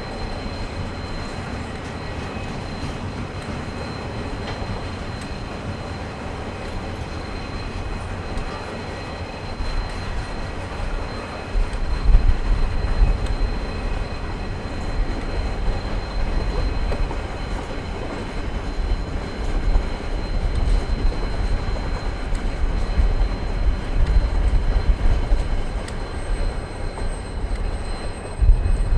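KiwiRail EF-class electric locomotive and its train running on the rails: a steady rumble of wheels and track noise with a thin, steady high tone above it. The low rumble grows heavier about twelve seconds in.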